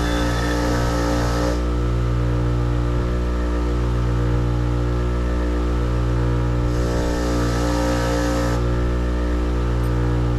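Electric grinder running with a steady motor hum. Twice, for about two seconds each, metal is pressed to the wheel and a grinding hiss rises over the hum.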